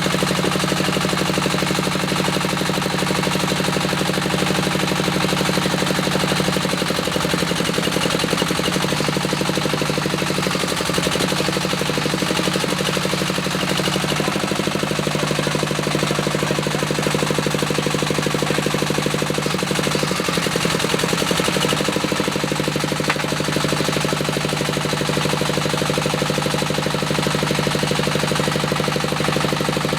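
Diesel engine of a small bore well drilling rig running steadily with a fast, even knocking beat. Its pitch sags briefly twice, a few seconds in and again past the middle, as the drilling load comes on.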